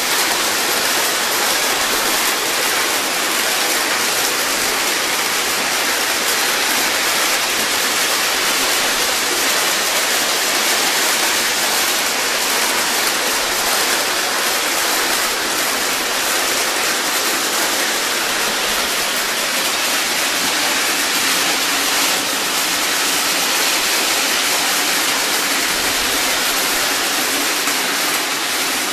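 Several O scale Lionel and Williams toy trains running at once on tubular tin track: a steady, even rushing noise of metal wheels on the rails.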